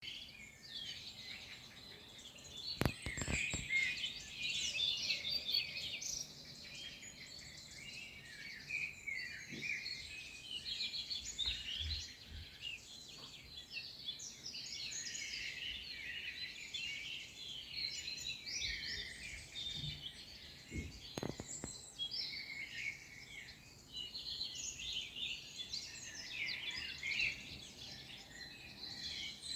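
Many birds singing and chirping at once in a dense, continuous chorus. A few brief knocks come through, about three seconds in and again past twenty seconds.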